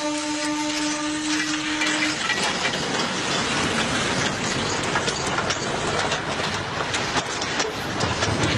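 A narrow-gauge train running, its wheels clattering over the rail joints in many sharp clicks over a steady rumble. A steady pitched tone cuts off about two seconds in.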